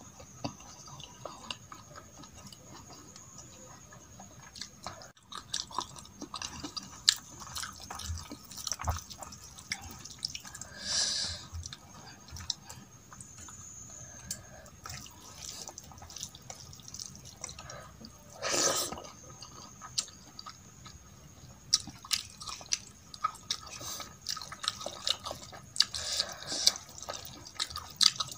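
Close-up wet eating sounds: chewing and many small irregular smacking clicks as rice mixed with masoor dal is eaten by hand, with fingers squishing the rice on a steel plate. A few louder wet smacks stand out, one near the middle.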